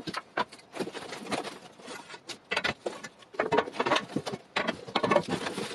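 Handling noise of aluminium extrusion rails and cardboard packing: irregular rustling, scraping and light knocks.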